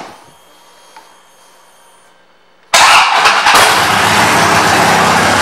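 Harley-Davidson Fat Bob V-twin with Vance & Hines aftermarket pipes being started: after about two and a half quiet seconds the starter turns it over, the engine catches almost at once and settles into a loud, lumpy idle.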